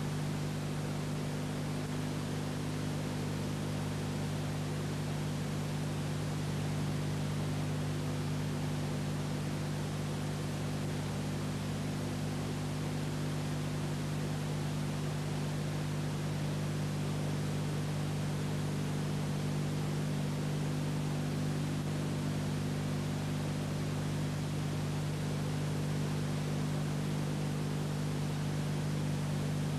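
Steady hiss with a constant low electrical hum and nothing else: the empty soundtrack of an old silent film transferred to video.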